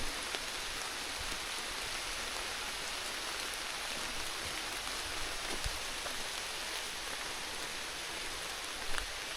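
Steady rain falling, an even hiss with a few sharper drops ticking close by.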